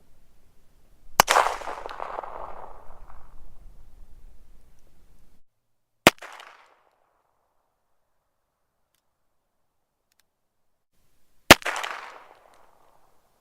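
Three separate handgun gunshots, each a sharp crack with a decaying echo: the first about a second in with a long reverberant tail of a few seconds, the second about six seconds in short and dry, the third near the end with a tail of about a second.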